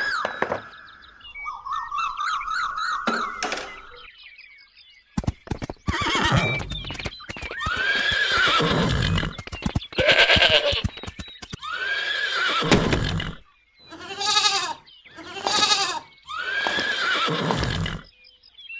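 A series of loud animal-like calls, each rising and then falling in pitch over about a second, begins about five seconds in. A warbling whistle-like tone comes before it.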